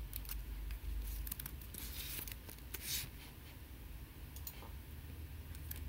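Scattered light clicks from a computer keyboard and mouse, a cluster in the first three seconds and a few more near the end, over faint steady hum.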